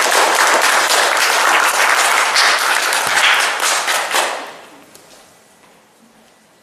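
Applause from a group, many hands clapping together, dying away about four and a half seconds in.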